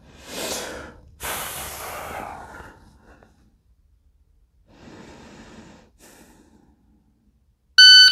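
A person breathing out heavily twice, then once more softly. Near the end a shot timer gives its loud, high electronic start beep.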